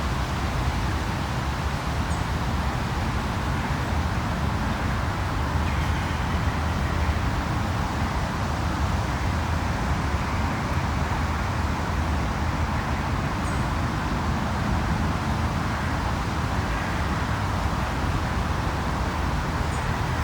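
City ambience: a steady low rumble of distant road traffic, with three brief, faint high chirps from a bird.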